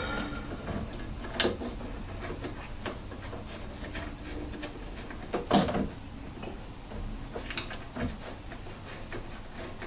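Scattered light knocks and clicks from speaker parts being handled, with louder knocks about one and a half and five and a half seconds in.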